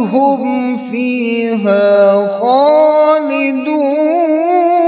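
A male qari chanting Quranic recitation in Arabic in a melodic tajweed style: long held, wavering notes in two drawn-out phrases.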